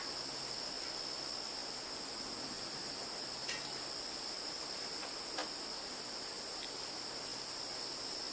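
Steady high-pitched insect chorus, an even chirring that does not change, with two faint clicks about three and a half and five and a half seconds in.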